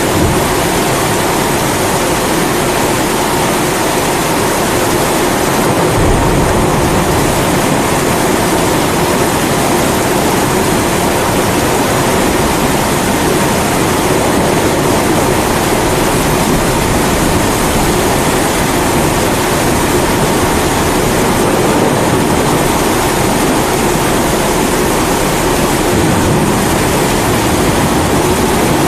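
Kerosene pressure stove (primus) burner running with a steady rushing hiss, mixed with steady rain. A deeper low rumble joins about six seconds in and carries on underneath.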